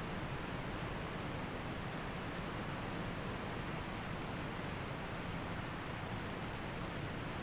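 Waterfall rushing steadily: an even, unbroken roar of falling water with no separate splashes.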